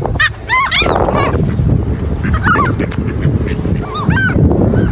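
Birds calling in groups of short calls that rise and fall in pitch: several about a second in, more around two and a half seconds, and another group near the end, over a steady low background noise.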